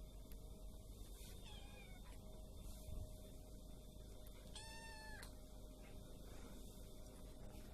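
Domestic cat meowing twice, faintly: a short falling meow about a second and a half in, then a clearer meow of about half a second near the five-second mark.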